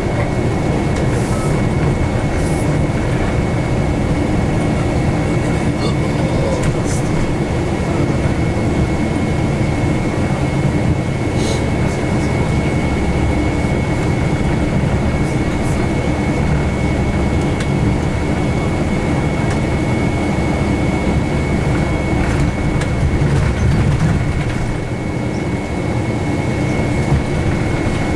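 Inside a moving city bus: the engine and tyres make a steady rumble, with a faint steady high whine and a few light rattles and clicks.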